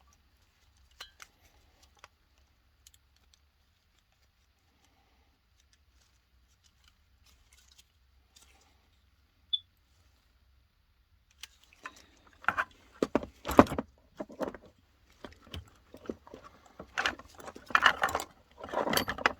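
A few scattered light clicks, then from about halfway a run of sharp rattling and clattering of small hard objects being handled.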